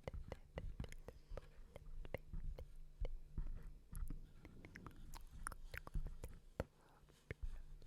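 ASMR mouth sounds close to the microphone: quick, irregular wet clicks and smacks, several a second.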